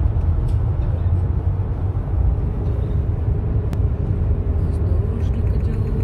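Steady low rumble of a car driving on the road, heard from inside the cabin, with one brief click about three and a half seconds in.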